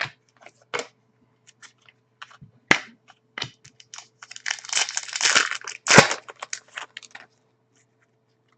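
Stiff 2008-09 Upper Deck SPx trading cards being flipped through and pulled apart by hand: scattered clicks and papery rustling, with a sharp snap about three seconds in and another about six seconds in. The cards are sticky with age and have to be separated.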